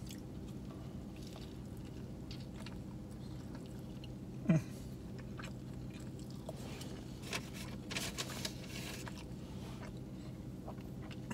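A man chewing a mouthful of four-patty cheeseburger, with faint soft wet crackles and ticks, over a steady low hum. A brief louder sound falling in pitch about halfway through.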